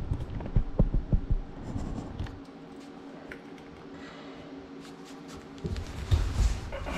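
Scattered knocks, clicks and scraping of tools and hardware being handled, most of them in the first couple of seconds, then a quieter stretch with a faint steady hum, then a few more thumps near the end.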